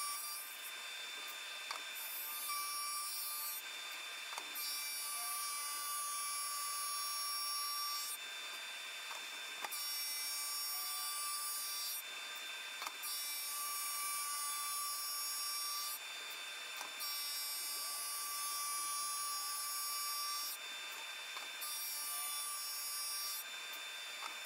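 SuperMax drum sander running, its spinning abrasive drum sanding down the face of a birch slab filled with crushed soapstone and CA glue as the conveyor carries it through. A steady motor whine runs under it, and the rougher sanding noise comes and goes in stretches of a few seconds.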